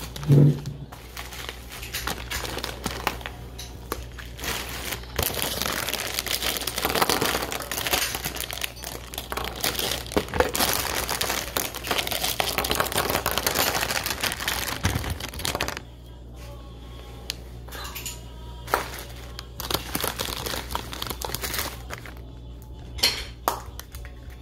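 Plastic candy bag crinkling as it is handled: dense rustling for the first two thirds, then quieter with a few light clicks. A short thump about half a second in.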